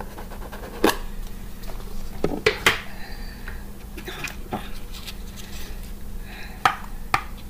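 Small container of glow-in-the-dark putty being opened and handled: scattered clicks and taps of the lid and tub.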